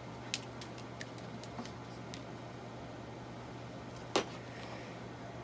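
Steady low hum of room equipment, with a few light clicks in the first couple of seconds and one sharper click about four seconds in.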